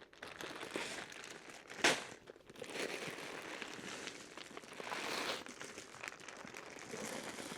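Rustling, crinkling noise with many small clicks that swells several times, and one sharper knock about two seconds in.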